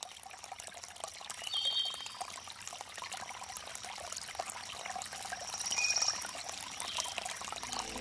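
Water pouring in a thin stream from a pipe spout, trickling and splashing steadily, with a few brief high chirps over it.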